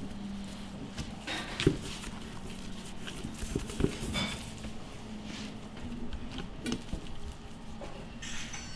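Gloved hands spreading and patting sticky sushi rice onto a nori sheet on a bamboo rolling mat: irregular soft pats and rustles with a few light knocks, over a low steady hum.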